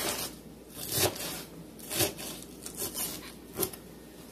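Kitchen knife chopping through a head of lettuce onto a cutting board: short, crisp cuts about once a second, with a few lighter ones between.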